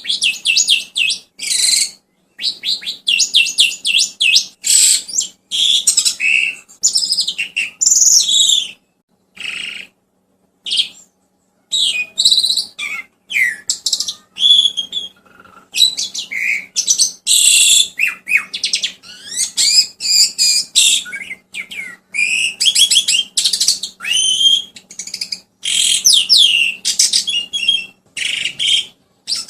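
Songbird singing a fast, varied run of chirps, trills and whistled sweeps, thinning out to a few scattered notes for a few seconds near the middle. This is bird song used as a masteran training track for a young starling.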